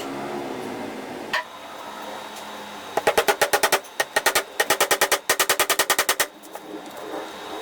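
A single sharp knock, then three or four quick runs of sharp knocks at about ten a second, lasting about three seconds in all.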